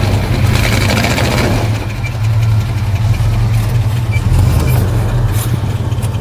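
Lifted pickup truck's engine running steadily at low revs as it crawls over boulders, with a few light clicks about five seconds in.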